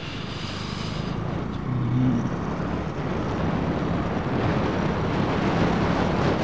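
Motorcycle riding along, its engine running under a steady rush of wind noise, both growing gradually louder.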